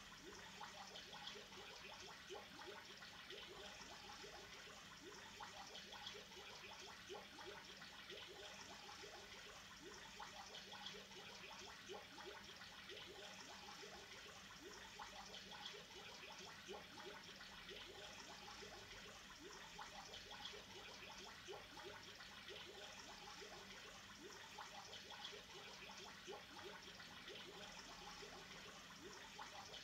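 Faint, steady bubbling and trickling of aquarium water, made of many small quick bubble blips.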